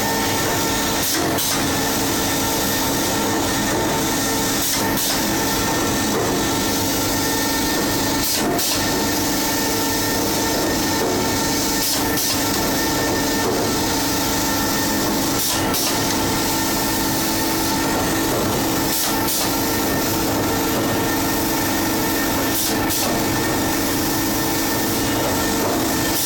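Bar-cutting machine running: a steady mechanical hum with several held tones, and a sharp clack about every three and a half seconds as the cutter strokes through the extruded bar.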